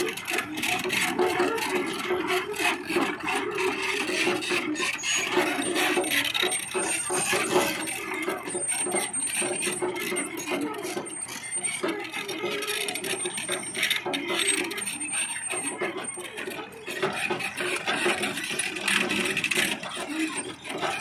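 Hyundai excavator digging mud: a steady machine drone with continual rattling and scraping.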